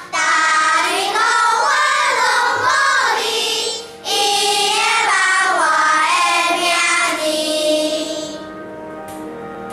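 Children's choir singing in unison in two long phrases, with a brief breath break about four seconds in. Near the end the voices stop, and quieter held accompaniment tones carry on.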